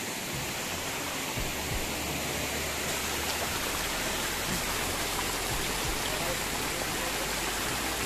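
Steady rush of fast-flowing water from a rain-swollen stream running down from a waterfall, a sign the falls are carrying a lot of water. A low rumble sits underneath from about half a second in.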